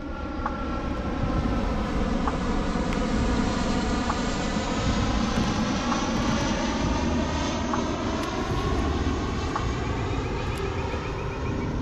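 Propeller airplane flying overhead, a steady many-toned engine drone that swells over the first few seconds and eases slightly near the end. A few faint clicks sound over it.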